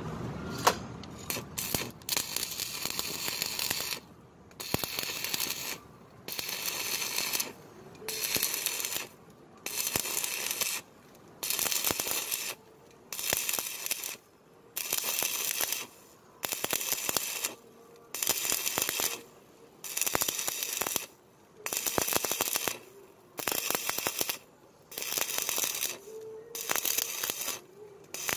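Stick-welding arc from a 4 mm electrode on galvanized angle steel, crackling and hissing in regular on-off pulses about once a second as the arc is broken and restruck during a vertical pass.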